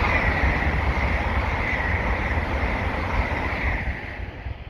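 Class 807 electric passenger train passing at speed: a loud rush of wheel and air noise with a low rumble and a steady high-pitched whine, fading away near the end.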